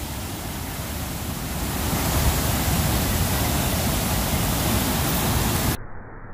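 Waterfall: a steady rush of falling water, growing louder about two seconds in. Near the end it cuts off abruptly to a fainter, muffled rush.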